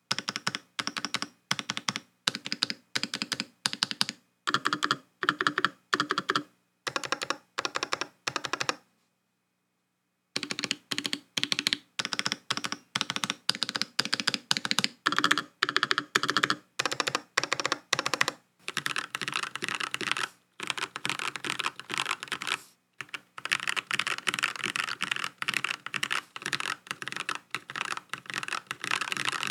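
Typing on a COX CA108BT full-aluminium mechanical keyboard fitted with Gateron Kangaroo switches: runs of clacking keystrokes with short breaks. They pause for about a second and a half about a third of the way in, and the typing becomes faster and unbroken over the last third.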